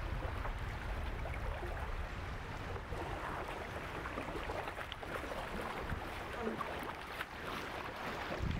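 Shallow river current running and burbling steadily, with a low rumble of wind on the microphone that is heaviest at the start.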